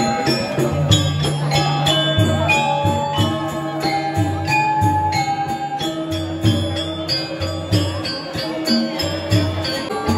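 Balinese gamelan playing: bronze metallophones ringing a shifting melody over a repeating low gong pulse, with fast clashing of small cymbals throughout.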